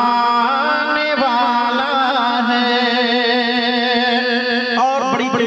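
A man singing a naat into a microphone, drawing out long, wavering melismatic notes in one unbroken phrase that breaks off near the end.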